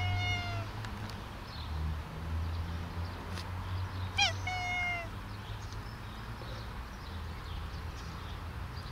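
Domestic cat meowing twice: a short meow right at the start and another about four seconds in that rises, then holds and falls slightly.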